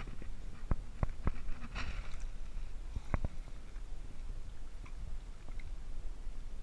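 Water lapping against an inflatable float tube, with a few sharp clicks and a brief splash over a low steady rumble.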